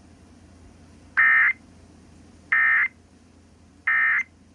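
Three short bursts of EAS SAME digital data tones, evenly spaced a little over a second apart: the end-of-message (EOM) signal that closes the emergency alert.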